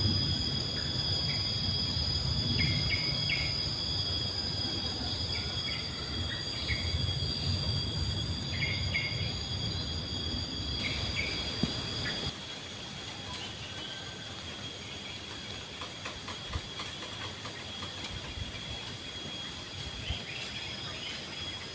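Insects droning steadily at a high pitch, with short chirps now and then and a low rumble that drops away about twelve seconds in.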